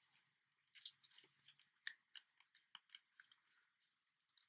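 Faint crinkling and crackling of paper as fingers fold an origami flap and press the crease, in quick irregular ticks, busiest about a second in.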